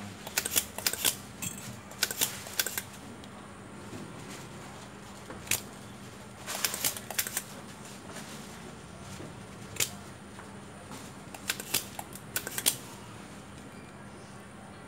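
Sharp clicks and light scraping of hand tools working on a washing machine's circuit board, in several short clusters of rapid ticks, over a faint steady hum.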